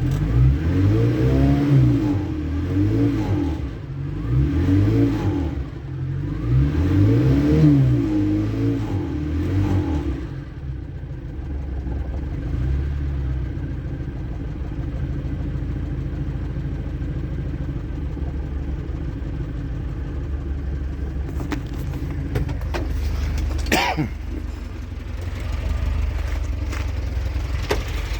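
Keeway RKV 125 motorcycle engine while riding: the revs rise and fall several times over the first ten seconds as it pulls through the gears, then it settles into a steady, lower drone.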